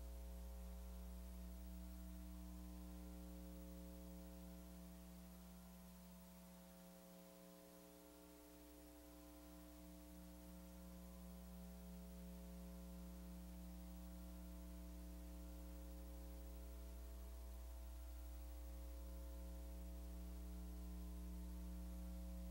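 Faint, steady electrical hum with its overtones under a light hiss, dipping a little about seven seconds in.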